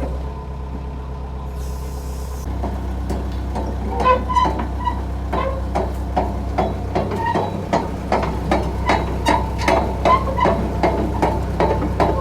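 Hitachi EX100-5 excavator's diesel engine running steadily. From a few seconds in it is joined by a rapid series of metallic clanks, about four a second.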